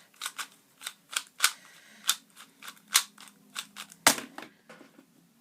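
MoYu MF2S 2x2 speedcube being turned quickly by hand: a string of sharp, irregular plastic clicks, roughly two to four a second, with one louder knock about four seconds in.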